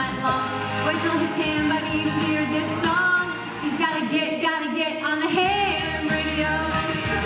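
A woman singing into a handheld microphone over backing music with a steady bass line.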